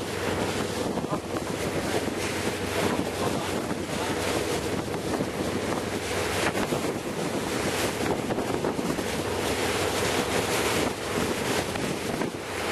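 Wind on the microphone and waves on the open sea, over the steady hum of a boat's engine.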